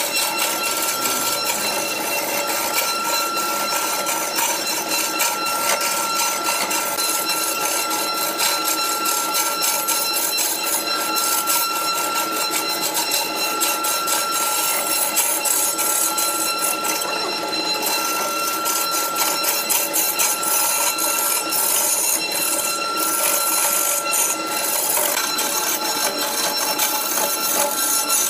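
Wood lathe spinning a large block of wood while a hand-held chisel cuts into it: a steady high tone from the running machine under a dense, rapid scraping chatter of the tool on the wood.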